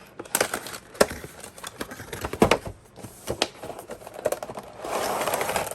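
Cardboard box and plastic packaging being handled as an action figure is taken out: a run of clicks, knocks and crinkles, with a sharp knock about a second in and another about two and a half seconds in, then a longer rustling slide near the end.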